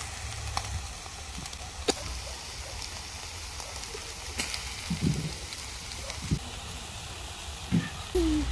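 Chicken breasts sizzling over a charcoal grill: a steady hiss with a few sharp crackles.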